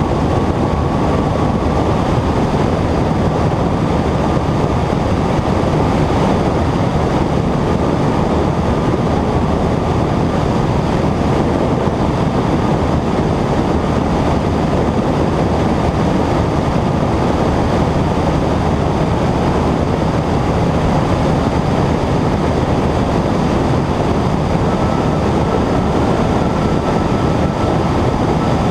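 Cessna 120 light plane's engine and propeller droning steadily in flight, with a faint high steady tone that edges up slightly in pitch near the end.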